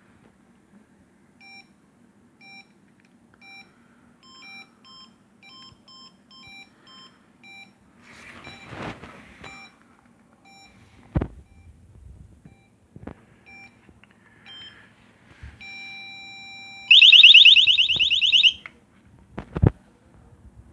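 Airsoft bomb prop's electronic timer beeping about once a second, the beeps coming closer together, then a steady tone. About 17 seconds in, a loud warbling siren sounds for about a second and a half as the timer runs out. A few sharp knocks are heard along the way.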